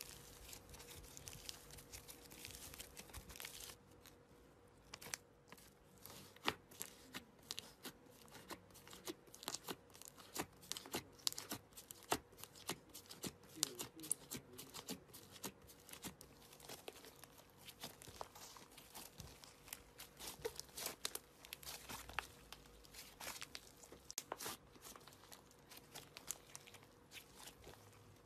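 Slime squeezed, poked and stretched by hand: a dense run of small sticky clicks, pops and crackles that sound like tearing, with short quieter pauses.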